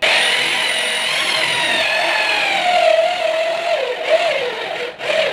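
Electric drill with a 32 mm hinge boring bit boring a hinge cup hole into a laminated board. It starts abruptly, and its motor whine sinks in pitch over the first few seconds as the bit cuts into the wood, over the noise of the cutting.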